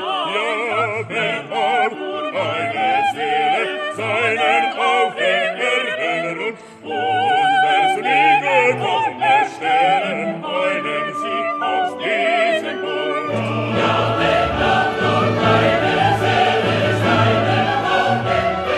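Classical music: operatic singing with a wide vibrato and a choir over an orchestra. About two-thirds of the way through the music grows fuller, with deeper orchestral notes underneath.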